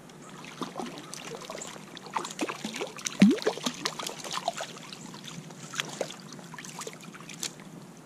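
A hooked stocked brown trout splashing in the water as it is brought in, a run of irregular splashes with the loudest about three seconds in.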